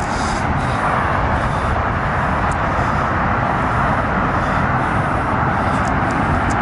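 Steady city background noise, the even roar of distant traffic with no single vehicle standing out. A few faint ticks come through about two and a half seconds in and again near the end.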